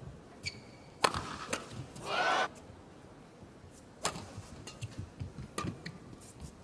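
Badminton rally: racket strings striking a shuttlecock with sharp smacks about a second in, at about four seconds and again a second and a half later. Short shoe squeaks on the court come between the hits, and a brief shout comes about two seconds in.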